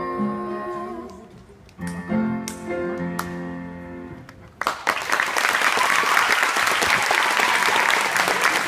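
Closing bars of a solo song: a held note fading out, then a few final chords on an upright piano. From about four and a half seconds in, audience applause breaks out and is the loudest sound.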